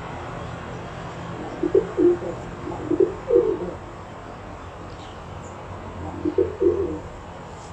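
Pet pigeon cooing: a run of short, low coos about two seconds in, and another pair near the end, over a steady low hum.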